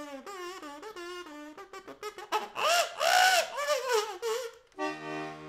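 A woman's high, wavering wordless vocalizing: squeals and sung glides that rise and fall in pitch in short phrases. Near the end a steady held musical chord with a low note comes in.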